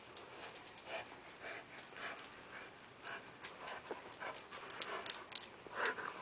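Yellow Labrador panting, short breathy puffs about twice a second, louder near the end as it comes right up close.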